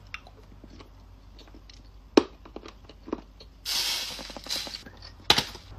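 Close-up mouth noises while eating a sweet: a few sharp lip-smack clicks and a short breathy hiss about four seconds in.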